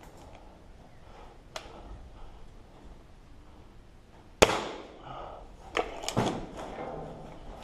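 A single sharp gunshot from a pigeon-shooting gun about four and a half seconds in, followed by two smaller sharp knocks about a second later.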